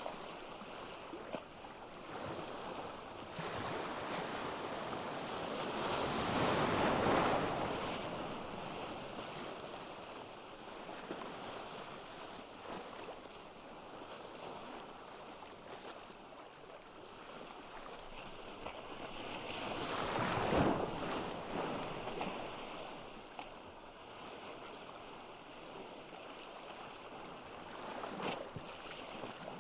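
Ocean waves breaking on a beach: a steady wash of surf with two larger waves that swell and break, one about seven seconds in and another about twenty seconds in.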